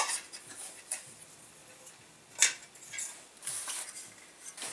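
Anodized aluminium nesting cook pot and lid being handled and set down: a few light metal clinks, the sharpest about two and a half seconds in, with some rustling after it.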